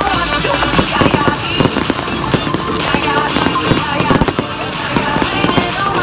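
Fireworks going off in many quick, irregular bangs, with music playing at the same time.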